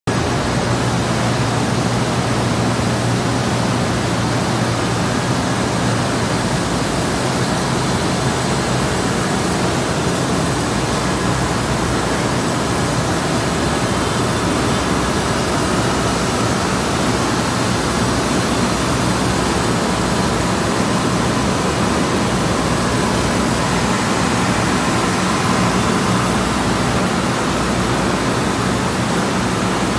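MPS EF510 eight-colour flexographic label press running in production: a loud, steady, even rushing noise with a faint low hum underneath.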